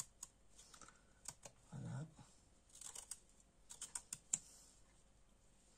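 Quiet, irregular clicks and scrapes of a metal peeler cutting strips of zest from a lime, the blade catching on the rind.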